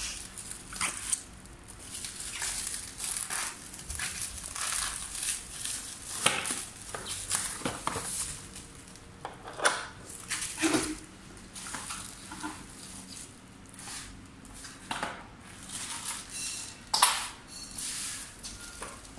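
Plastic stretch wrap and bubble wrap crinkling and rustling as it is cut with scissors and pulled off an electric scooter, in irregular crackles, a few louder than the rest.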